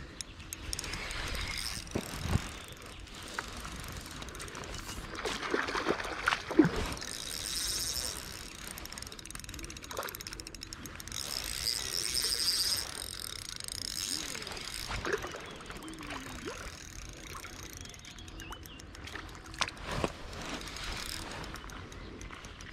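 Ultralight spinning reel being cranked to bring in a hooked fish, its gears whirring in stretches, with scattered sharp clicks.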